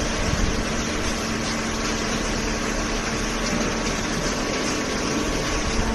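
Hydraulic baler's power unit running: a steady machine hum with a constant tone over a dense mechanical din.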